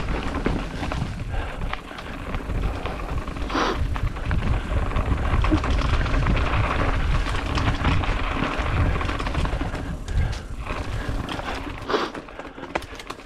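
Mountain bike riding down a rocky trail: a continuous rattle and clatter of tyres and bike over rough ground over a heavy low rumble, with sharper knocks about four seconds in and again near the end.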